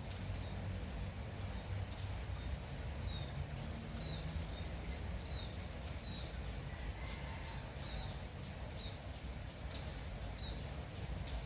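Light rain falling steadily with a low rumble underneath, while a bird repeats short high chirps about once a second. A few sharp drip-like ticks stand out.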